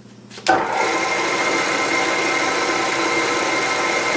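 Milling machine motor switched on with a click about half a second in, then running steadily with a whine.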